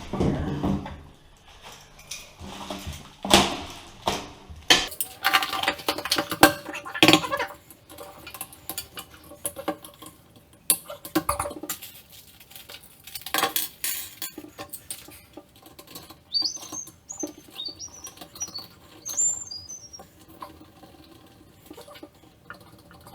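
Plastic toilet seat and its fittings being handled and put on: an irregular run of clicks, knocks and scraping of plastic, with a few short high squeaks later on.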